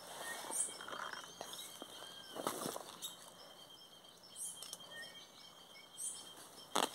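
Rural pond-side ambience: birds give short chirps and whistled arching calls over a steady high insect buzz, with light rustling. A louder rustle comes near the end.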